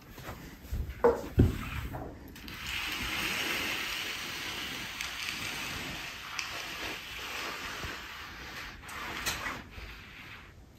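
A couple of light knocks, then a steady hiss starting about two seconds in and fading near the end.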